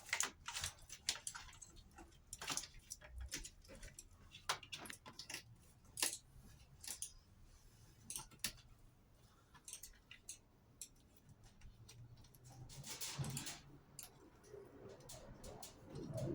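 Irregular light clicks and knocks of tools and metal parts being handled while a washing machine's drive motor is fitted, with a brief rustle near the end.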